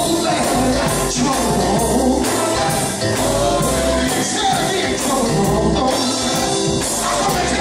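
Male gospel singers in full voice, backed by a live band whose drums and cymbals keep a steady beat.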